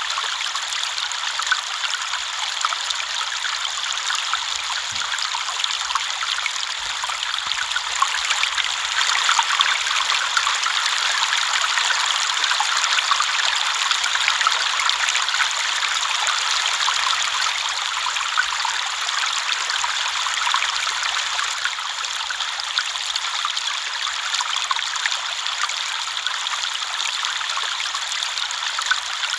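River water flowing steadily over stones, a continuous bright babbling and trickling with no breaks.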